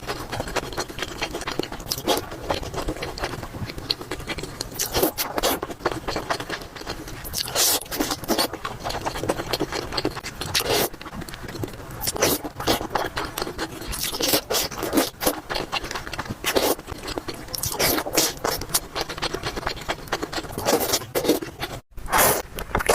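Close-miked eating sounds: irregular crunching and chewing of food, with a brief break near the end.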